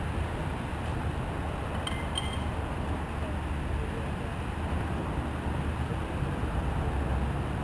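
Two light metallic clinks about two seconds in, from a crowbar knocking as it is worked under a heavy wooden skate box, over a steady low background rumble.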